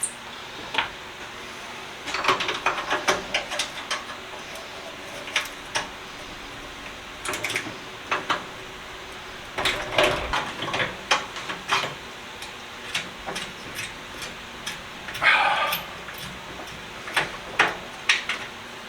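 Irregular clinks and knocks of metal toolbox parts being handled and taken apart, with a short scrape about fifteen seconds in.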